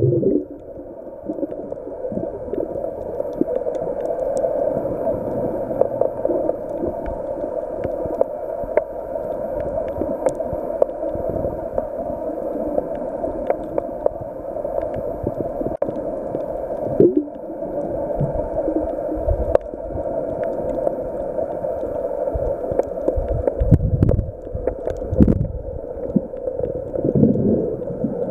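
Muffled underwater noise picked up by a submerged camera: a steady rush of water with occasional low thuds and gurgles, the loudest around three-quarters of the way through.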